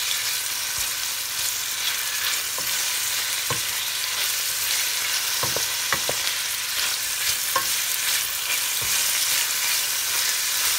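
Sliced onions and garlic sizzling steadily as they fry in oil in a stainless steel pot. A wooden spoon stirs them, with a few scattered clicks against the pot.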